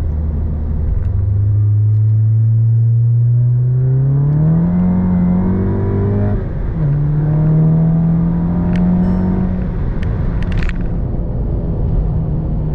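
Turbocharged four-cylinder engine and Baun Performance aftermarket exhaust of a modified Mk7 Volkswagen GTI, heard while driving under acceleration. The engine pitch climbs through the revs, drops sharply at a gear change about six and a half seconds in, climbs again, then eases off near the end.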